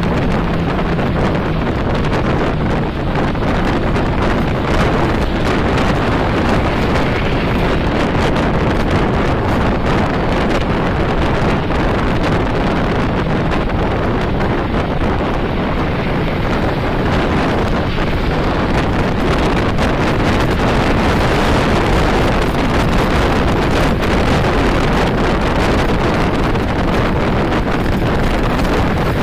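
Steady wind buffeting the phone's microphone, mixed with the rush of road and traffic noise from a car driving along a highway.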